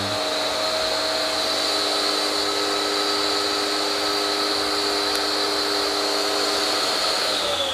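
Bosch Easy Aquatak 120 pressure washer's electric motor and pump running steadily at full speed with the trigger pressed, drawing water through its suction hose from a bucket. The motor winds down near the end, its whine falling in pitch.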